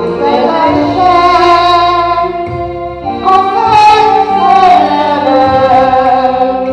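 A woman singing into a microphone, holding long, wavering notes over a steady low instrumental accompaniment.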